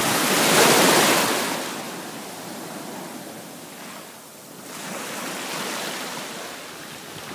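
Shallow surf washing in over sand at the water's edge: a foaming rush that is loudest in the first second or so, then ebbs, and a second, softer wash comes in about five seconds in.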